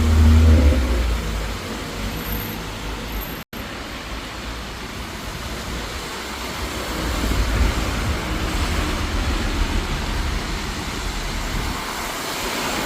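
Road traffic passing on a rain-soaked street, with a steady hiss of rain and wet tyres; a vehicle's low engine rumble swells near the start and again in the middle. The sound cuts out for a split second about three and a half seconds in.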